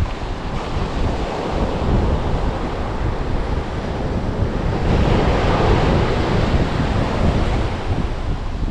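Wind buffeting the microphone over ocean surf breaking on the shore. The surf swells louder about five seconds in.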